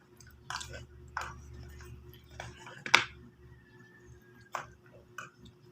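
Spoon and fork clicking against a plate while eating, a handful of scattered clinks with the sharpest about three seconds in, over a steady low hum.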